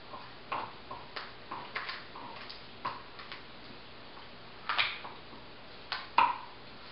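Kitchen shears snipping through a raw rabbit carcass: a run of irregular short snips and clicks, the loudest about five and six seconds in.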